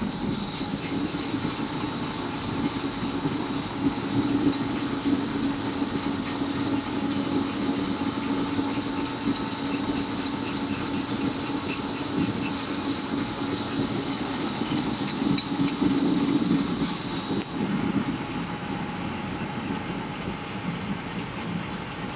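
Six-colour flexographic printing machine running at speed, film web travelling over its rollers: a steady mechanical hum with a thin high whine, which drops out about three-quarters of the way through.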